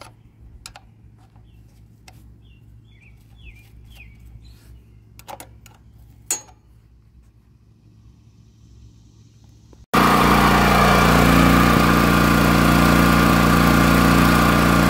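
Faint metallic clicks of an open-end wrench on the carburetor mounting nuts. About ten seconds in, the Honda GX340 single-cylinder engine is suddenly heard running, loud and steady, on test after the carburetor gasket was replaced.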